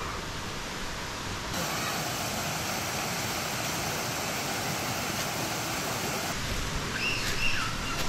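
Steady rushing of flowing water from a stream or cascade, an even hiss. It turns brighter and fuller about a second and a half in and drops back near six seconds.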